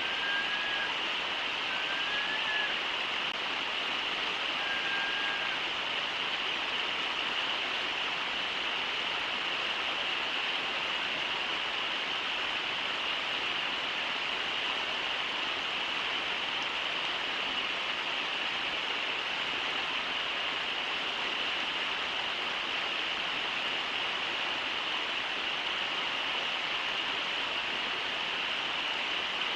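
Steady rush of shallow river water running over the riffles of the Brooks River. Three brief, faint whistle-like notes sound in the first six seconds.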